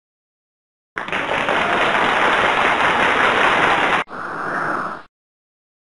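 Editing sound effect: a loud, steady hiss-like burst of noise for about three seconds, cut off abruptly, then a shorter, softer sound for about a second.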